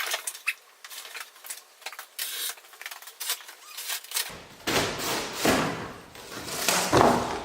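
Irregular rustling, scraping and knocking handling noises: thin and clicky for the first four seconds or so, then fuller noisy swells.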